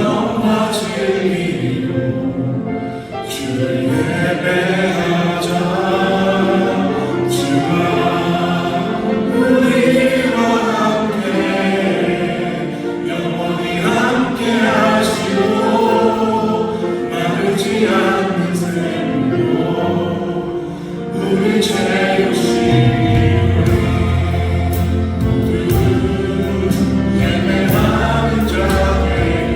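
A choir singing, with many voices moving together; a deep bass comes in about three quarters of the way through.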